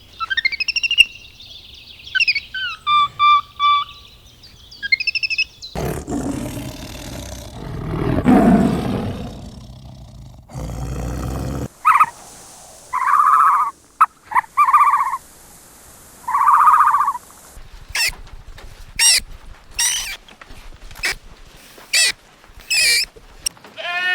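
A succession of different animal calls: gliding chirps first, then a low rough call, then a run of short repeated calls.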